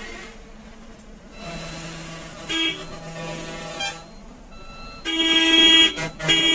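Vehicle horns honking in slow, jammed highway traffic: a short toot about two and a half seconds in, another around four seconds, then a long loud blast about five seconds in and a short one near the end.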